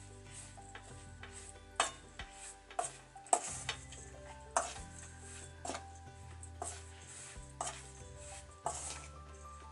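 Hands mixing shaggy flour dough in a mixing bowl, with sharp knocks and taps against the bowl about once a second, over soft background music.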